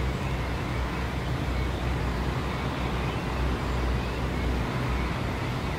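Steady low outdoor rumble, with no distinct event standing out.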